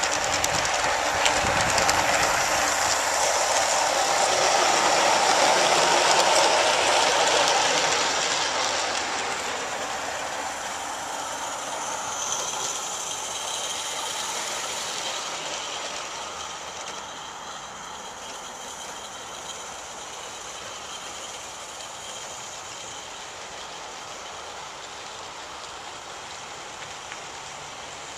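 Small 16 mm scale live-steam locomotives and their trains running on 32 mm gauge garden-railway track, with wheel noise and steam hiss. It swells loudest as a train passes close, then fades away within the first quarter-minute to a steady, softer sound.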